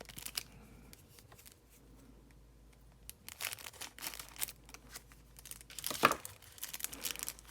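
Card packaging crinkling and rustling as it is handled and torn open, with a few sharp rustles at the start, a lull, then a busier run of crinkling from about three seconds in.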